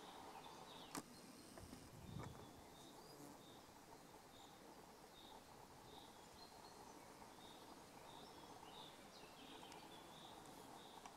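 Near silence in open country, with a faint high chirp repeated steadily about every three-quarters of a second. A sharp click comes about a second in, and a short low thump comes about two seconds in.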